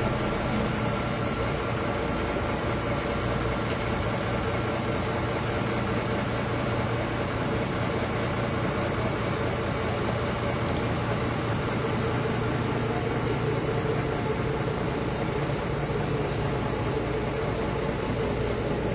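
A vehicle's engine idling, a steady low hum that holds level without revving.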